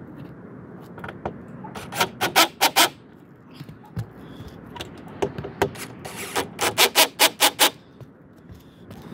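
Two quick runs of sharp clicks, several a second, about two seconds in and again from about five seconds, over a faint steady background.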